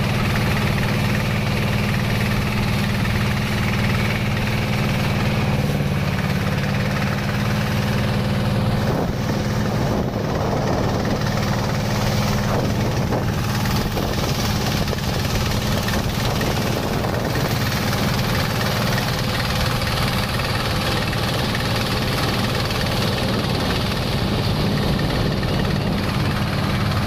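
Engine of a motorized wooden river boat running steadily under way, a constant low hum, with water splashing and rushing along the hull.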